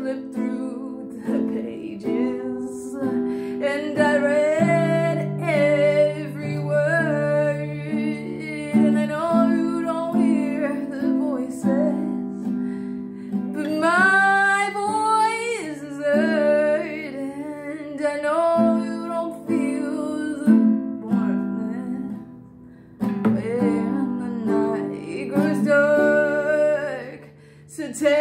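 A woman singing a slow melody with her own acoustic guitar accompaniment.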